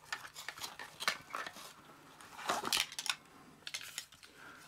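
Small hard plastic and metal kit accessories being handled, giving a few irregular clacks and rattles, the loudest a little past halfway.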